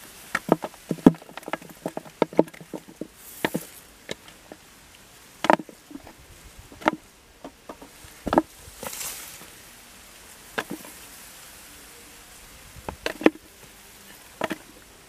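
Irregular sharp slaps and knocks of live fish being picked up off dry mud and dropped into a plastic bucket, thick and quick in the first few seconds, then scattered.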